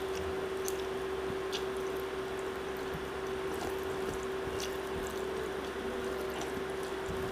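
Fingers squishing and mixing rice with curry on a banana leaf, with scattered small wet clicks, over a steady background hum.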